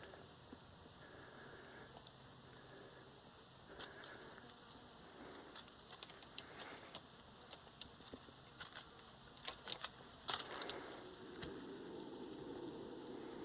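Steady, high-pitched drone of an insect chorus, unbroken throughout, with a few faint clicks and rustles and one sharper click about ten seconds in.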